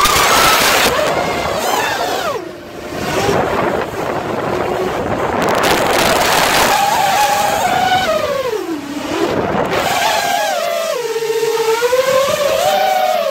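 Quadcopter drone's electric motors and propellers whining, heard through a phone taped to the drone, with a rush of prop wash. The whine's pitch slides up and down as the throttle changes, dropping low and climbing again near the two-thirds mark.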